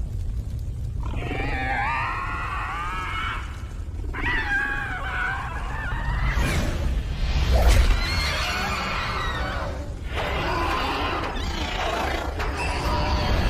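Night Feeder creature vocal effects: a run of wavering, pitch-bending shrieks, each about two seconds long, over a steady low rumble, with a sharp hit about halfway through.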